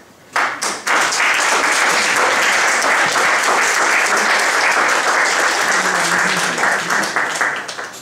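Audience applauding, starting about half a second in, holding steady and then thinning out near the end.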